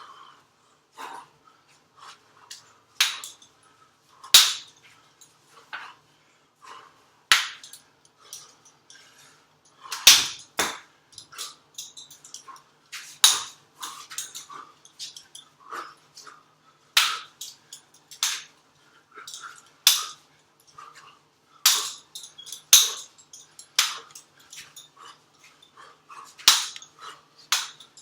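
Hand-held training weapon striking a wooden jump rope handle target in irregular rapid clacks, loud sharp hits every second or two with lighter taps between.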